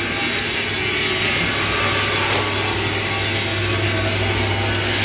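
Rice-husk furnace running with its fire building: a steady drone of a low hum under an even hiss, with a brief tick about two seconds in.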